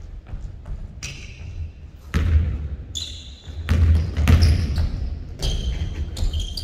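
A basketball bouncing hard on a wooden gym floor in several dribbles, with short high sneaker squeaks on the hardwood as the players cut and stop.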